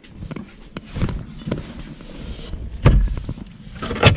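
Scattered knocks and thumps of hands and the camera handling a car's interior plastic trim, the loudest about three seconds in.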